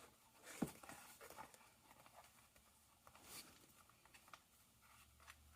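Near silence with faint handling noises of vinyl sheets: scattered light rustles and clicks, with one sharper tap about half a second in.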